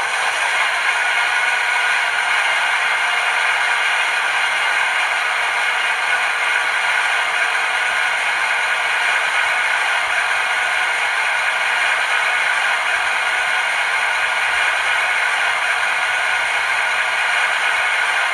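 Recorded X2800 railcar diesel engine sound idling steadily, played by an ESU LokSound decoder through the small speaker of an HO-scale model. It is a dense, rattly hum with no deep bass.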